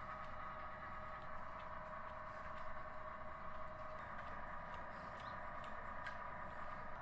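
Steady workshop machine hum made of several high, even tones, the lowest of which fades about four seconds in, with faint scattered clicks and taps in the second half.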